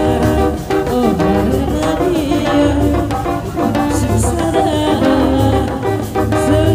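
Loud Sundanese Benjang procession music: steady heavy drumming under a wavering melody line, with a voice singing over it.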